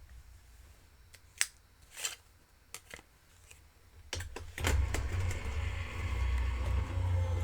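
A few light taps and rustles of paper and tape being pressed down, then from about four and a half seconds in a die-cutting machine starts running with a steady motor hum as it cuts the circle die through the washi paper.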